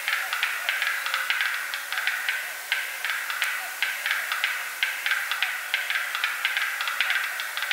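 Black-billed capercaillie display calls: a dense run of dry clicks, several a second and irregular, over a steady hiss.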